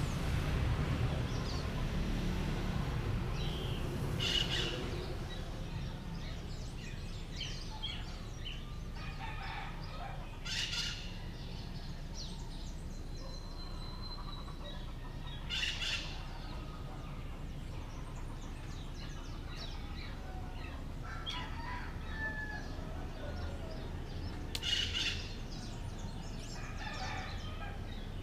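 Dawn birdsong: scattered chirps, with four louder, short calls spaced several seconds apart. A low hum of distant traffic sits under it, strongest in the first few seconds.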